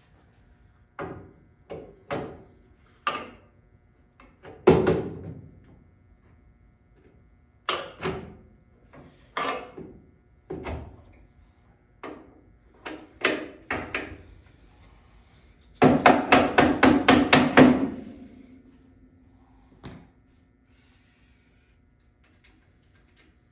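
Metal hand tools knocking and clanking on front-suspension parts: a dozen separate sharp knocks, then about two-thirds of the way in a quick run of about a dozen rapid hammer-like strikes, followed by a fading metallic ring.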